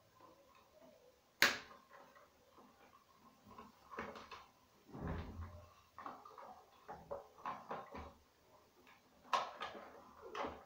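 Plastic clicks, knocks and scraping as an instant electric shower heater's casing is worked on and its round cover handled and fitted by hand. There is one sharp click about a second and a half in, a duller knock and rub in the middle, and a couple of clicks near the end.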